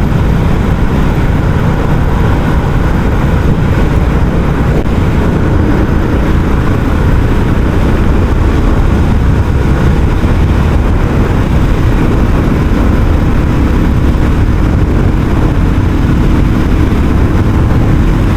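Royal Enfield Classic 350's single-cylinder engine running steadily through its stock exhaust as the motorcycle is ridden, its low beat loud and even throughout.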